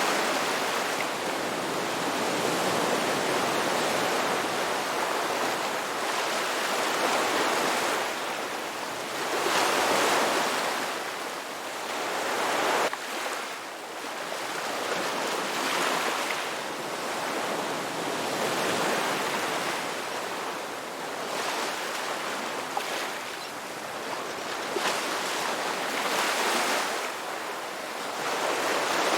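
Ocean surf: waves breaking and washing in, the rush swelling and fading every few seconds, with one abrupt drop near the middle.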